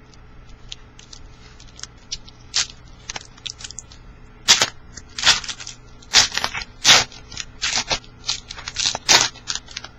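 Plastic trading-card pack wrapper crinkling and being torn open, with cards handled. Faint light ticks at first, then a run of sharp, irregular crackles from about four and a half seconds in.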